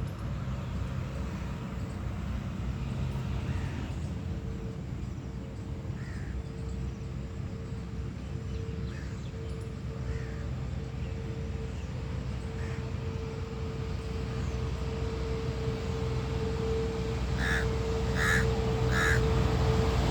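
Crows cawing, with faint scattered calls and then three loud caws in quick succession near the end, over a steady low rumble and a faint steady hum.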